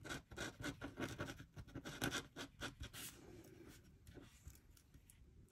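Fine-tip glue pen scratching and dabbing on a small cardstock die-cut tree: a faint quick run of small scratches for about three seconds, then quieter.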